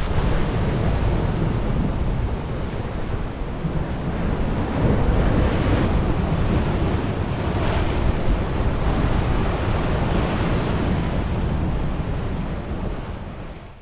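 Sea waves breaking and washing over a rocky shoreline, with wind buffeting the microphone as a low rumble. The surf swells a couple of times and then fades out near the end.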